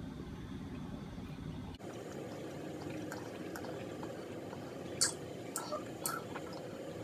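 Faint liquid sounds of a child drinking leftover chocolate milk, with a few small clicks a little past the middle.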